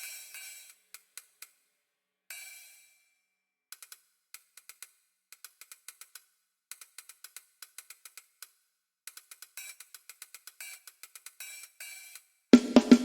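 Drum kit sound check: soft, sparse hi-hat ticks and light cymbal taps, then loud snare and tom strikes come in near the end.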